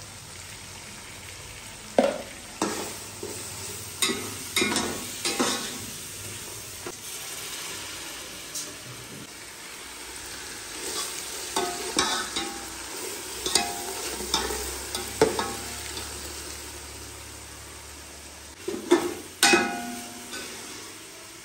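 A long metal slotted spoon stirring and scraping a frying onion-and-chilli masala in an aluminium pot, with a light sizzle of oil. Every so often the spoon clanks against the pot, each clank ringing briefly, and there are two quick clanks near the end.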